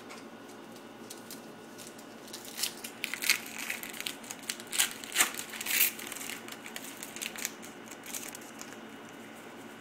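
Foil Yu-Gi-Oh booster pack wrapper being torn open and crumpled by hand: a run of sharp crackles and crinkles that starts a couple of seconds in, is loudest in the middle and dies away before the end.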